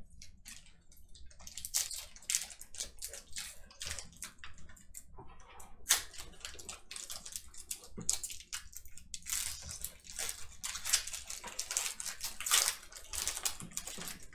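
Crinkling and crackling of a Panini Prestige football card pack's wrapper being torn open, with the cards inside handled, in an irregular stream of crisp rustles and a few sharper snaps.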